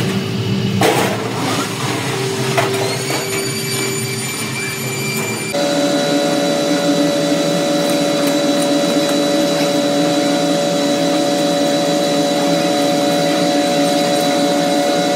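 Metalworking machinery running. There are two sharp knocks and a motor whine that rises and then holds. A few seconds in, the sound changes abruptly to a steady machine run with a constant whine.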